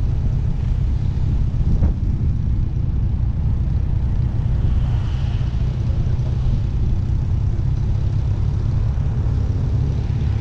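Motorcycle riding at a steady speed: the engine running under a low rumble of wind buffeting the microphone.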